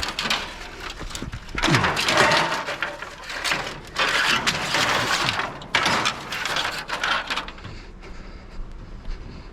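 Pieces of scrap metal being handled and set down, clattering and scraping in about three bursts, with quieter handling noise near the end.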